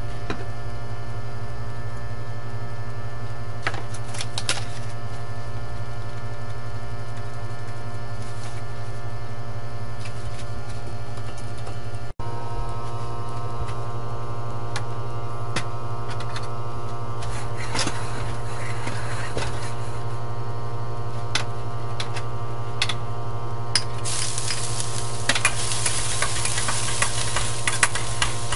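A steady mechanical hum runs throughout, with a few light clinks. In the last few seconds minced ginger sizzles in hot oil in a wok while a metal spatula scrapes and stirs it.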